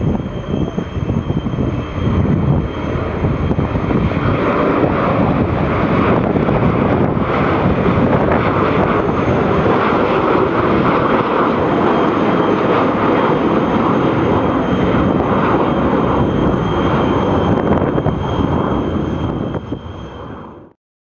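Boeing 727-200's three Pratt & Whitney JT8D turbofans at takeoff power on climb-out: loud, dense jet noise with a thin steady whine over it. It eases off near the end, then cuts off abruptly.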